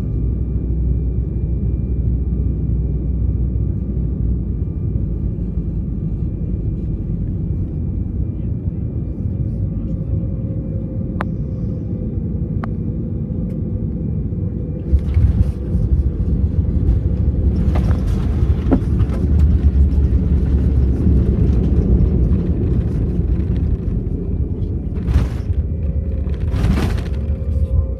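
Inside the cabin of a Sukhoi Superjet 100 on final approach: its twin SaM146 turbofans and the airflow make a steady low rumble with a faint high whine. About halfway through the noise grows louder, with several short rushes of air noise.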